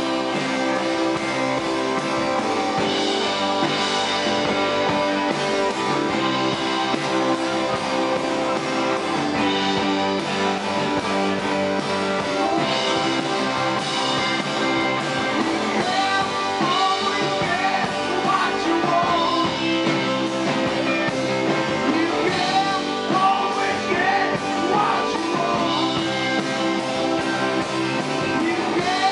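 Live rock band playing at full volume: electric guitar lead over acoustic guitar, drums and keyboard, with bending guitar notes through the second half.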